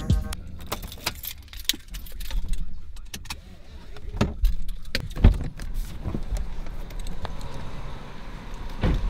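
Keys jangling with scattered handling clicks as a Chevrolet is shut off and left, and a car door thumps shut a little past five seconds in.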